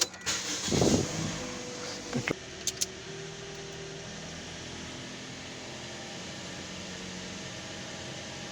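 Car air-conditioning blower running with a steady rush of air, freshly serviced and blowing very cold. A few clicks and a thump come in the first three seconds.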